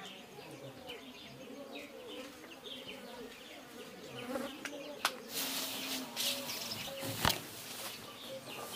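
A flying insect buzzing close by, a hum that wavers in pitch, with two sharp knocks about five and seven seconds in.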